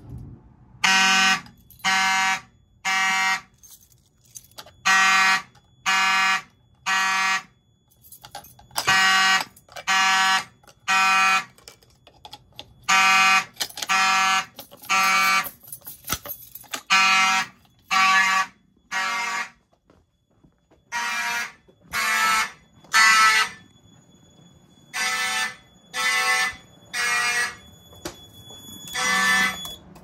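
Several fire alarm mechanical horns sounding together with a harsh buzz, in the temporal-3 evacuation pattern: three half-second blasts a second apart, then a pause, repeating about every four seconds. This is a fire alarm system in alarm after a manual pull station has been pulled, and it opens with a sharp click.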